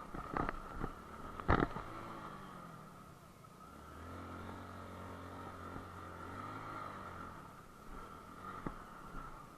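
Motorcycle engine running over a rough, bumpy track, with sharp knocks from the bumps in the first two seconds, then the engine note falling and rising again as the rider eases off and opens the throttle.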